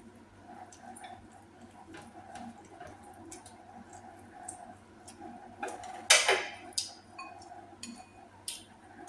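Close-miked eating: soft chewing and mouth clicks with light taps of utensils on dishes, and one louder, short sound about six seconds in.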